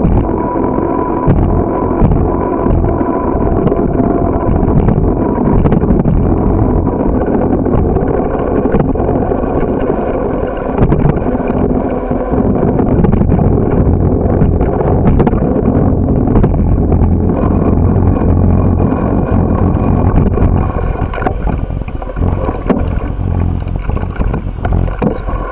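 Wind buffeting the microphone of a camera riding along on a bicycle, mixed with rattles and knocks from the bike rolling over rough pavement. The noise thins out and drops near the end.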